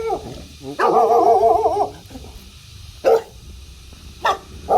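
Dog barking at a passing stranger, unhappy at the intrusion: a long wavering bark about a second in, then two short sharp barks.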